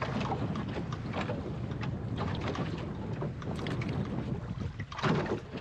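Choppy water splashing and slapping against the hull of a small wooden sailing skiff, with wind buffeting the microphone; a louder slap comes about five seconds in.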